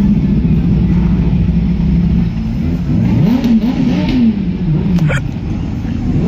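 Motorcycle engine running at a steady pitch, then revved up and down a few times partway through, with another falling rev near the end.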